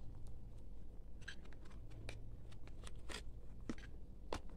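A snap hair clip being slid onto a cardboard display card: scattered light rustles of the card and small clicks, the sharpest one about four seconds in.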